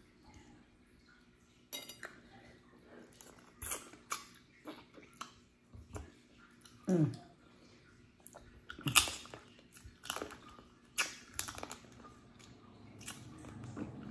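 Boiled crawfish shells being cracked and peeled by hand: a scattered series of sharp cracks and snaps, with chewing and sucking mouth sounds, the loudest crack about nine seconds in.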